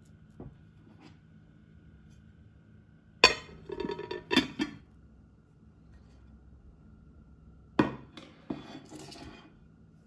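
Glass mixing bowl and kitchen utensils being handled: two short clusters of sharp clinks and knocks, one about three seconds in and one near eight seconds.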